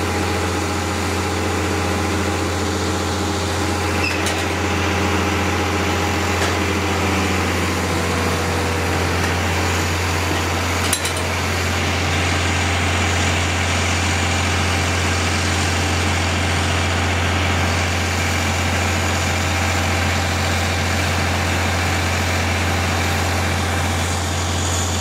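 Concrete pump truck's diesel engine running at a steady speed while the hydraulic boom is positioned, a constant deep hum. A single sharp click about eleven seconds in.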